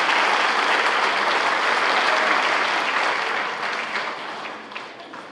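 Audience applauding, the clapping thinning and dying away over the last second or two.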